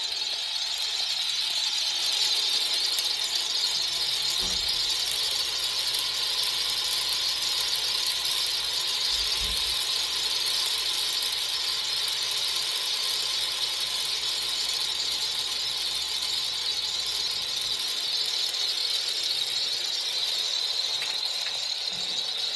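Magic Scale Modelling light-and-sound kit running a 1/32 scale Mosquito's twin propeller motors, with simulated engine sound from its small speakers: a steady, high-pitched whirr that holds level throughout.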